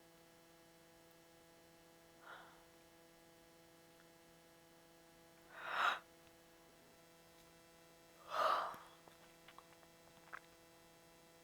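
A person breathing: a faint breath, then two louder, heavy breaths a few seconds apart, with a few small mouth clicks near the end, over a steady electrical hum.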